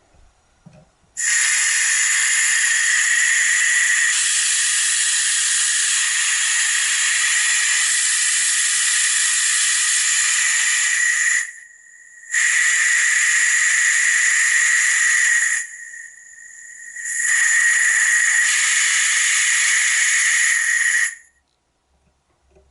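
Compressed air hissing out of the small tank of a homemade fridge-compressor air compressor as it is bled down toward the 70 PSI cut-in pressure. The long steady hiss stops briefly twice and resumes.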